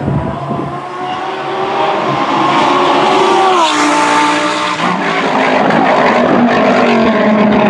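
Lamborghini Gallardo GT3 race car's 5.2-litre V10 at high revs, approaching and passing close by, then pulling away. The engine note grows louder and rises, then drops sharply in pitch about three and a half seconds in as the car goes past.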